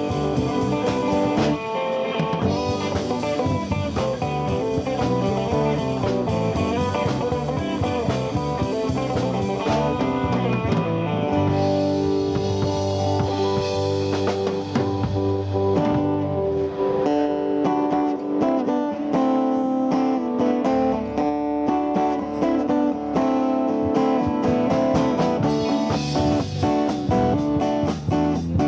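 Live band playing with guitars and a drum kit: electric and acoustic guitars over a steady drum beat, without a break.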